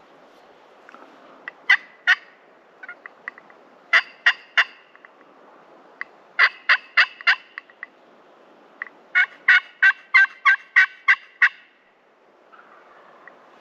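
Turkey yelping: runs of short, sharp, evenly spaced notes, first two, then three, then about five, and near the end a longer run of about ten.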